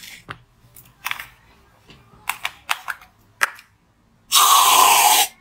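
Aerosol whipped-cream can sprayed into the mouth: one loud hiss lasting about a second near the end, after a few light clicks and taps of the can being handled.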